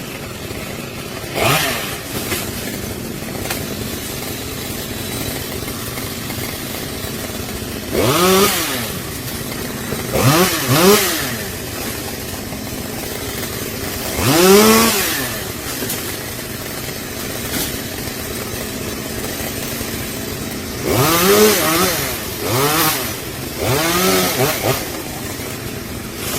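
Chainsaw engine idling steadily, its throttle blipped about seven times. Each rev rises and falls in pitch within about a second, bunched in the middle and near the end.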